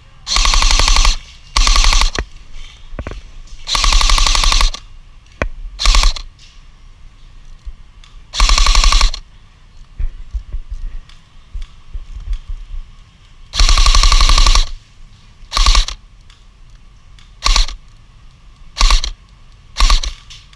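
Airsoft rifle firing rapid full-auto bursts, about ten of them, each from a fraction of a second to about a second long, with short pauses between.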